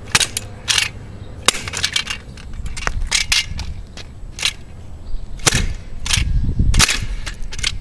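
A kick scooter slammed down again and again on a small alkaline battery lying on asphalt: a string of about a dozen sharp, irregular clacks and knocks of metal and hard plastic on the road, with a low rumble underneath in the second half.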